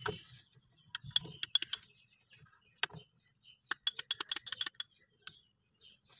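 Rapid light clicks and clatter from small hard parts being handled, in two quick runs of a dozen or so ticks each with a few single clicks between.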